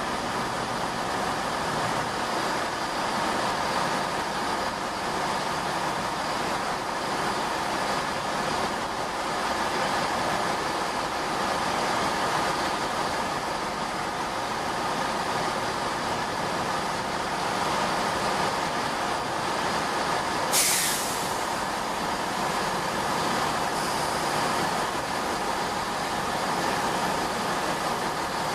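Diesel trains running at a station: a Voyager diesel-electric unit pulling away and a class 165 Turbo diesel-hydraulic unit drawing into the platform, engines running steadily. A brief, sharp hiss comes about twenty seconds in.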